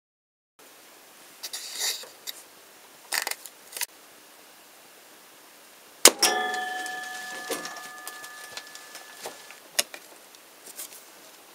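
A home-made knife-headed arrow hits with a sharp crack about six seconds in as it slices through a postcard. Its metal shaft then rings with a clear metallic tone that fades over about three seconds. A few short rustles come before the hit, and a few light clicks after it.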